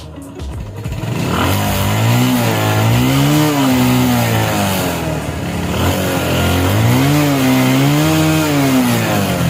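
Small motorcycle engine running, revved up and back down twice.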